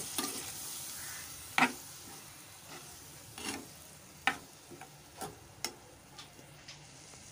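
Metal spoon stirring and scraping a frying tomato-onion masala in a metal pan, with several sharp clinks of the spoon against the pan over a faint sizzle.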